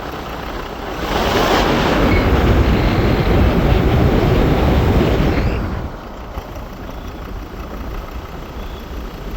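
Ford Endeavour diesel engine idling, then revved up about a second in and held for roughly five seconds before dropping back to idle. The engine is being revved to trace an abnormally loud engine noise, here checked at the AC compressor.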